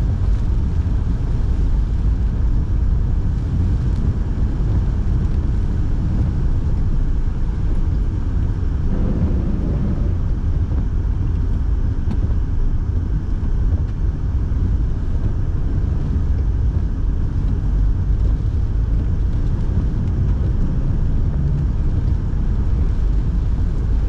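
Steady in-cabin noise of a car driving: a constant low rumble from the engine and tyres on the road, with the heater fan running. A slight swell about nine seconds in.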